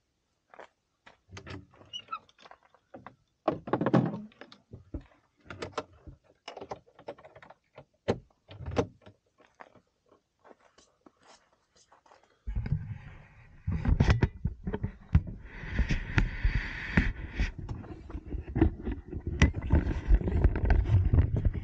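Scattered knocks and clicks of gear being handled around a car's open hatch and its hitch cargo box. About halfway through, this gives way to a continuous rumble and rustle of the camera being picked up and carried, with clicks on top.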